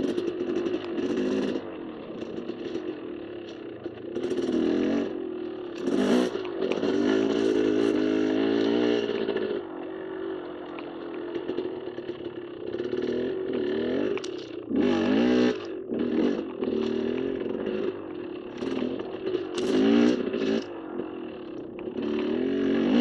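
KTM dirt bike engine running under a rider on single-track trail, its note rising and falling as the throttle is opened and closed, with louder surges about a third of the way in, around two-thirds and near the end.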